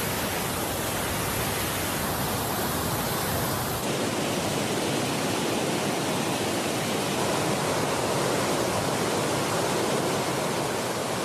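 A huge waterfall: a steady, loud rush of falling water, with a slight change in tone about four seconds in.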